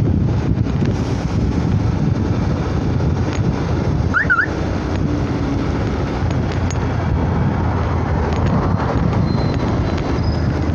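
Motorcycle riding at speed, its engine running steadily under the rush of wind over the microphone. A short high chirp about four seconds in.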